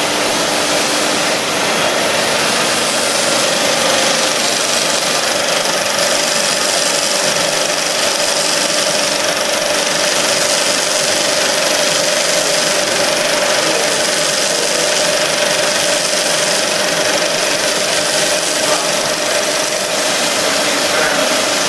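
Running 35 mm film projector and its lamphouse cooling in a projection booth: a loud, steady mechanical whir with one steady tone through it.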